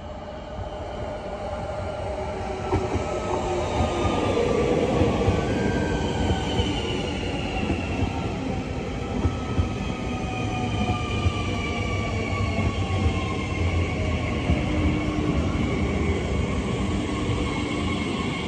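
SNCF Île-de-France electric multiple unit running into the station past the platform, growing louder over the first few seconds. Several whining tones from its motors fall steadily in pitch as it slows, over a dense rumble of wheels on rails.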